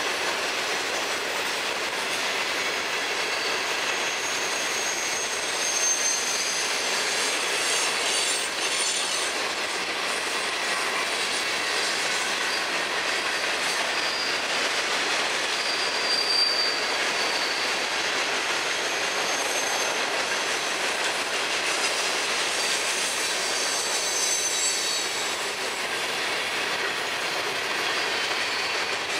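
Florida East Coast freight train's hopper and gondola cars rolling past: a steady rolling rattle of steel wheels on rail, with thin high wheel squeals coming and going.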